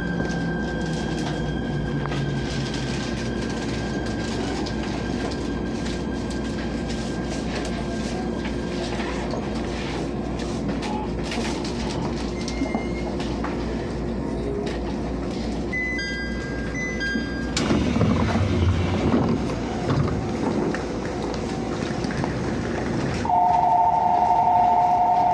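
E127 series electric train braking into a station, its motor whine falling in pitch as it slows and the running noise dying away. About two-thirds in, a short rush of sound comes as the door opens. Near the end a loud, steady two-note electronic chime sounds at the open door.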